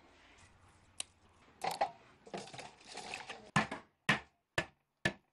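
Kitchen knife chopping garlic and ginger on a wooden cutting board: four sharp chops about half a second apart in the second half, after a single click and some handling noises.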